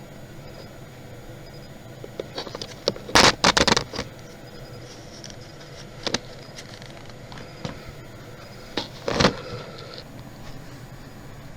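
Knocks and clatter from handling a suitcase and its wheel parts during a wheel repair. There is a loud run of knocks about three seconds in, single clicks around six and seven seconds, and another loud knock near nine seconds, all over a steady hiss.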